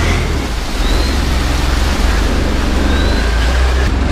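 Boat motor running along a canal: a steady loud rumble under a rush of wind and water noise.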